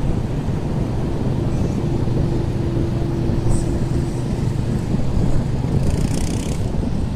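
Quad bike (ATV) engine running as it drives past, a steady hum that fades out after about four seconds, over a continuous low rush of wind and surf.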